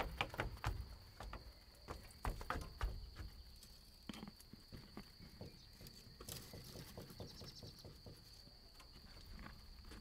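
Wooden nest box and pole knocking and scraping against a board wall as the box is hung up, a cluster of sharp knocks in the first three seconds, then only scattered light clicks.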